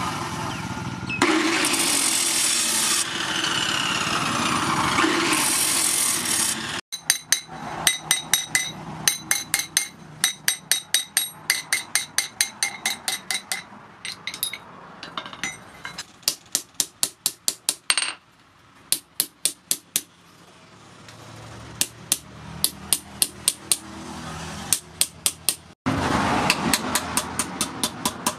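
Abrasive cut-off saw grinding through a steel blade for about the first seven seconds. Then a long run of quick hammer blows ringing on steel over an anvil, about three or four a second with short pauses, and near the end a loud steady rushing noise returns under more hammering.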